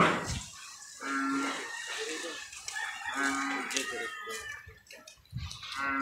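An animal calling repeatedly: three short calls about two to three seconds apart, with a sharp knock right at the start.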